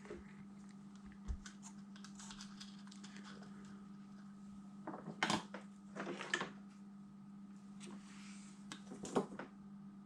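Small clicks and taps of tools and solder being handled on a workbench during hand soldering, in three short clusters about five, six and nine seconds in, over a steady low electrical hum.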